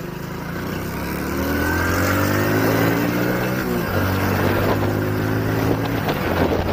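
Hero Splendor motorcycle's single-cylinder four-stroke engine accelerating under the rider: its pitch climbs for the first few seconds, drops sharply at a gear change about four seconds in, then climbs again.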